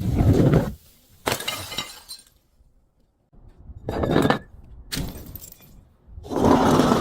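Glass bottles breaking and being crushed: about five separate bursts of crunching and shattering glass, with short pauses between them; the first and last are the loudest.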